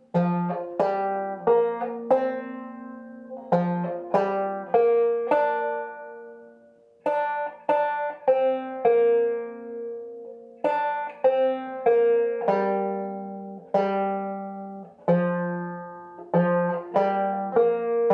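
Open-back banjo played clawhammer style, slowly picking out a melody note by note in short phrases with brief pauses, each plucked note ringing and dying away. It is tuned a whole step below double C (F, A-sharp, F, A-sharp, C), so it sits low with slack strings.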